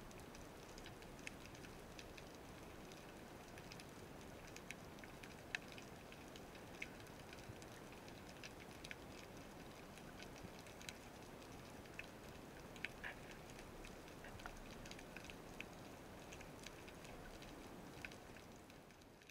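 Underwater ambience over a rocky seabed, heard through an action camera's waterproof housing: a faint even hiss with irregular sharp clicks and crackles, several a second, fading out near the end.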